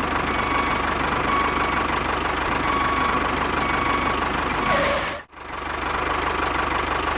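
A small motor or engine running steadily with a faint whine. It cuts out abruptly for an instant about five seconds in, then runs on.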